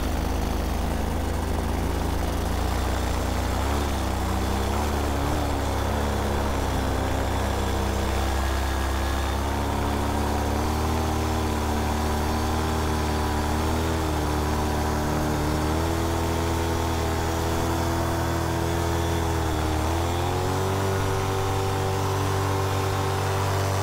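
Paramotor engine running in flight, its pitch dipping and rising several times as the engine speed changes.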